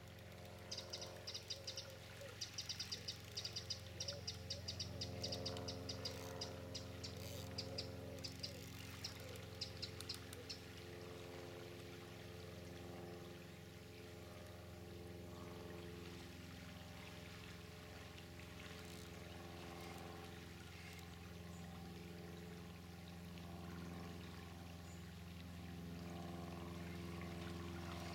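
Fishing reel clicking in rapid runs while a hooked barbel is played on a bent rod, stopping about ten seconds in. A steady low hum runs underneath.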